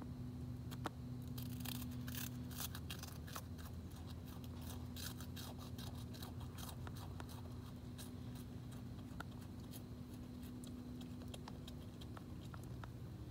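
An opossum crunching and chewing food: a rapid crackle of crunches, thickest in the first half and thinning to scattered crunches later, over a steady low hum.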